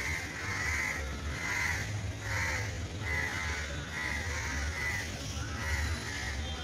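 Crows cawing in a long, steady series, a little more than one caw a second, over a low steady hum.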